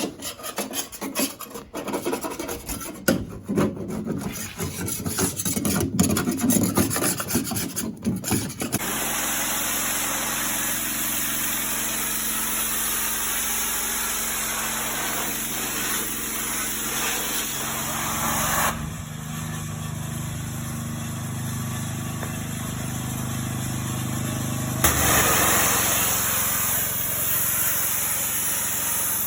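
Paint being abraded off an aluminium boat hull: irregular scraping and rubbing strokes at first, then a steady, continuous sanding noise from about nine seconds in. The sanding noise steps down in level once and back up once.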